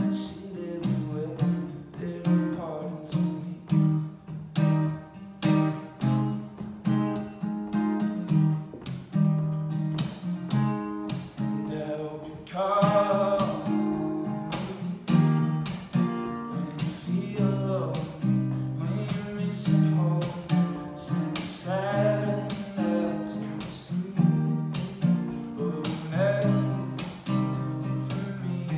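Acoustic guitar strummed steadily in a live song performance, with a man's singing voice rising over it in places.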